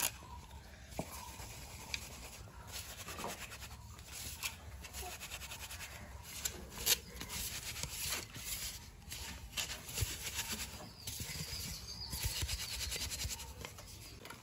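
Hands rubbing and pressing flour through a wire-mesh sieve, making an irregular scratching and rustling against the mesh.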